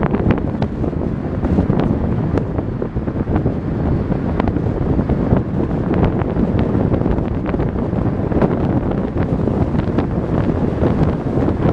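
Strong typhoon wind buffeting the microphone in a steady, loud rumble, with many scattered sharp ticks throughout.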